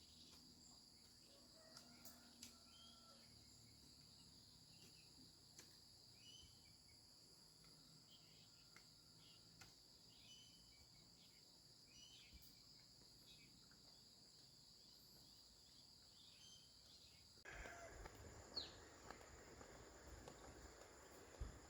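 Faint, steady high-pitched insect chorus, like crickets, with a few short bird chirps and light ticks. About three-quarters of the way through, a louder rustling noise comes in over it.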